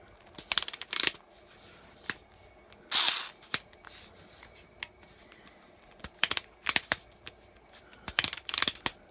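Plastic screwdriver set and its bits being handled: scattered sharp clicks and brief scraping rustles, with a longer scrape about three seconds in.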